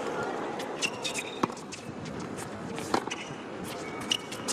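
A tennis rally on a hard court. Rackets strike the ball three times, about a second and a half apart, with short squeaks of shoes on the court and a steady low crowd hum underneath.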